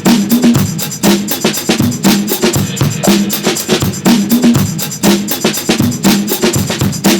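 Background music with a steady, fast drum-kit beat over a short repeating low riff.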